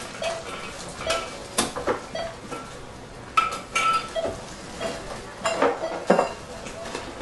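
Plastic ink cartridge in its clear plastic tray handled and set down on the steel plate of a self-checkout scanner: a string of irregular clicks and clacks, the sharpest about three and a half seconds in and again near six seconds.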